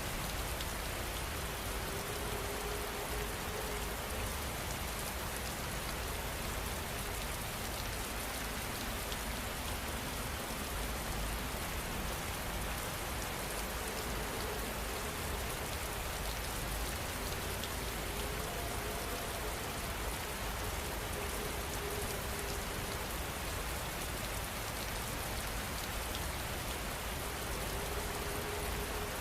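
Steady heavy rain falling, an even hiss of drops with a low rumble underneath.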